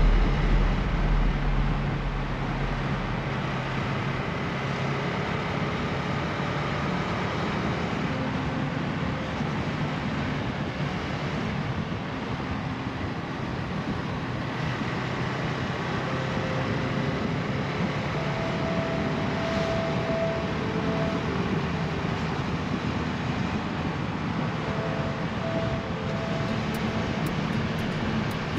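Motorcycle engine running at road speed under wind and road noise, its pitch shifting a little as the rider changes throttle.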